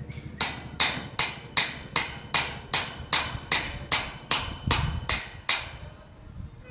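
Hammer driving a long rebar anchor spike into the ground: about fourteen sharp, ringing strikes, a little under three a second, stopping near the end.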